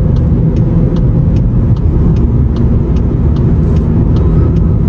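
Road and engine noise inside a Volkswagen's cabin driving through a tunnel at about 50 km/h: a loud, steady low rumble with no wheel-bearing hum, the rear-left bearing having just been replaced. Over it a turn signal ticks about two to three times a second.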